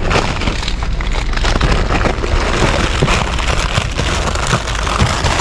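Plastic bags and packaging rustling and crinkling as they are handled and rummaged through, a dense run of crackles over a steady low rumble.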